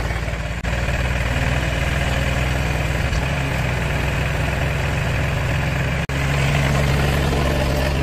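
Engine of a highway guardrail pile driver running steadily at idle, with a steady low drone. The sound cuts out for an instant twice, about half a second in and about six seconds in.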